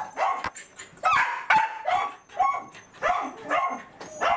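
Welsh corgi yelping and barking in a rapid string of short, high calls, about two a second, in an excited greeting.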